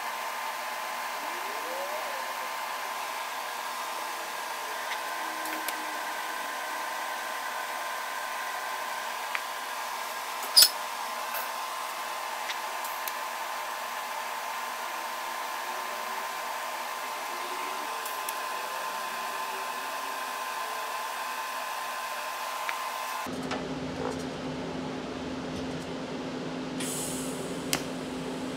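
TIG welding arc laying stitch welds on steel angle iron: a steady hiss with a faint hum, broken by one sharp click about ten seconds in. Near the end the sound changes abruptly to a lower steady hum.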